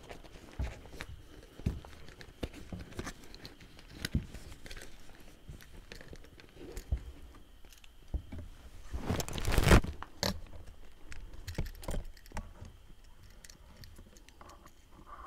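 Scattered light clicks, knocks and scrapes of someone moving and handling things among debris and litter, with one louder rustling scrape lasting about a second, just after nine seconds in.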